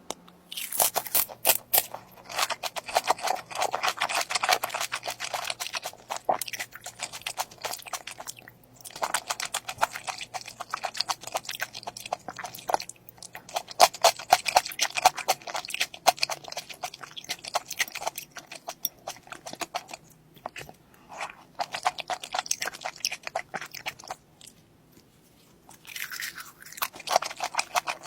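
Close-up crunching and chewing of battered deep-fried seafood, in stretches of several seconds with short pauses between bites.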